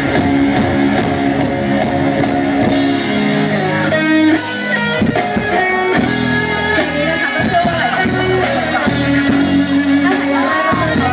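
Live rock band playing an instrumental passage: guitar lines over bass and drum kit, with no singing.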